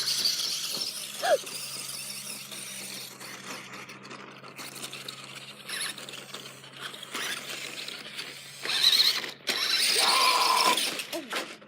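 Toy RC car driving: its small electric motor whirring, with squealing and scraping from the wheels, loudest in two spells near the end.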